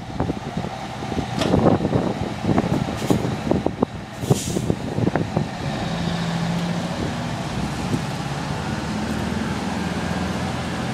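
Fire truck's diesel engine idling steadily after irregular knocks and rumbles, with a short hiss of air about four seconds in.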